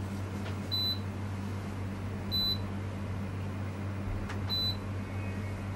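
Three short, high electronic beeps from a pelvic-floor muscle stimulation machine, spaced about two seconds apart as the stimulation session starts, over a steady low electrical hum.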